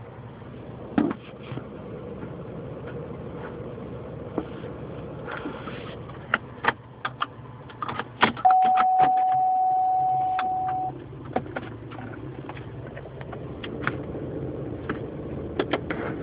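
2004 Pontiac Grand Prix 3800 V6 idling, with irregular sharp rattling clicks and knocks over the steady engine hum. This is the rattle the owner hears mostly in drive or reverse. Midway a steady tone sounds for about two and a half seconds.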